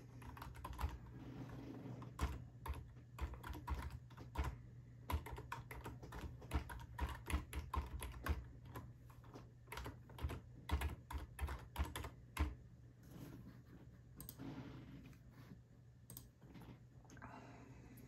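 Typing on a computer keyboard: a run of irregular keystrokes entering sign-in details, stopping about twelve seconds in.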